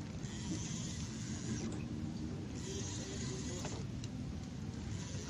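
Steady low rumble of wind and sea on a small open boat, with two stretches of higher water hiss from waves, one early and one about halfway through.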